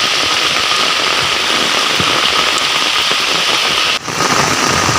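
Steady hiss of water, with a short break about four seconds in.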